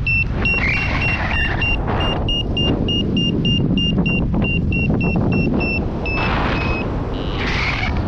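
Paragliding variometer beeping in short pitched pulses, about three a second, which signals the glider is climbing in rising air. Wind rushes over the microphone underneath, with a couple of louder gusts.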